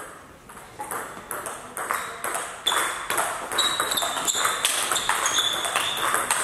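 Table tennis rally: the ball clicking off the players' bats and bouncing on the table in quick alternation. The hits come faster and louder after the first couple of seconds.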